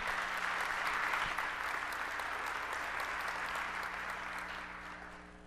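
Audience applauding: many hands clapping together, strongest in the first second or two, then gradually fading out near the end.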